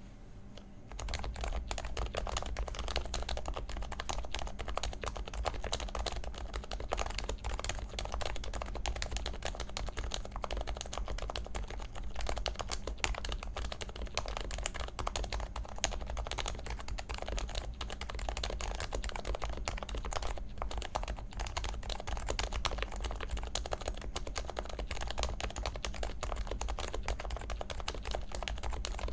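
Lubed and silenced HHKB Pro 2 with Topre electrocapacitive rubber-dome switches being typed on quickly and without a break, a dense stream of deep keystroke thocks starting about a second in.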